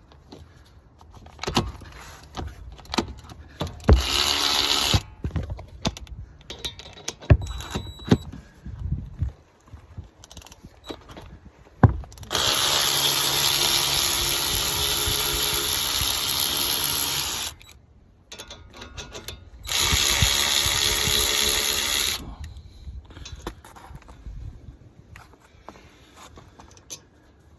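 A power tool runs in three spells: briefly about four seconds in, steadily for about five seconds near the middle, then for about two seconds more. In between are scattered metallic clicks and knocks. It is being used to remove the brake calipers on a car.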